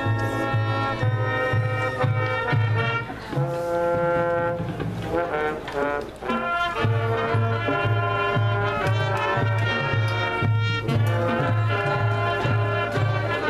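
High school marching band playing: brass holding and changing chords over a steady low beat about twice a second.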